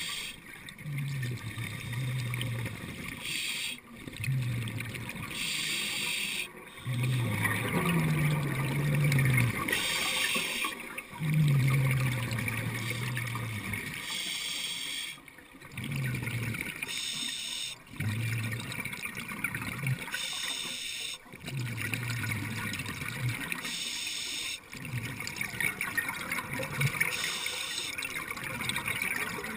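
Scuba diver breathing through a regulator underwater. A hissing inhale alternates with a bubbling, rumbling exhale, one breath every few seconds.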